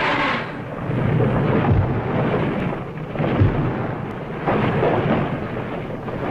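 Rumbling, thunder-like sound effect that swells and fades several times, loudest about three and a half seconds in, following a pitched effect that cuts off just after the start.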